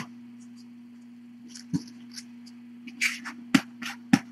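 Scattered light clicks and taps, about six of them and mostly in the second half, over a steady low electrical hum.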